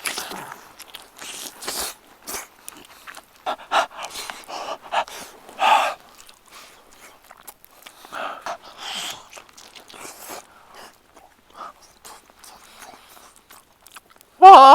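A person biting and chewing a piece of steak close to the microphone: irregular wet mouth clicks and short chewing sounds. At the very end there is a loud voiced exclamation.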